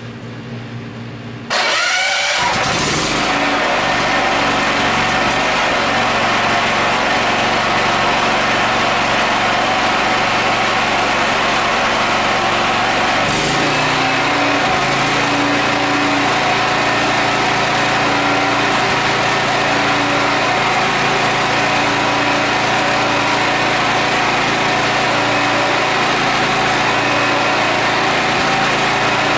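Harbor Freight Predator 8750 generator engine revving up about a second and a half in, then running steadily at speed, with a shift in its low hum about halfway through.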